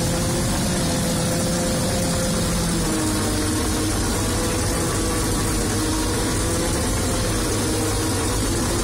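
Fortschritt E-281 self-propelled forage harvester running steadily under load while chopping maize, heard from the cab. The engine tone changes about three seconds in.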